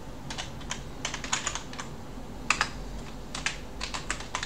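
Typing on a computer keyboard: irregular keystrokes in short runs separated by brief pauses, as a terminal command is entered.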